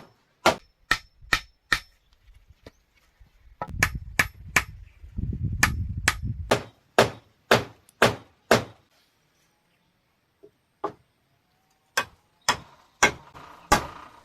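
Hammer blows ringing on metal, as in driving nails into bamboo, in steady runs of about two strikes a second with a pause of a few seconds past the middle. A low rumble runs under the blows for a couple of seconds before the middle.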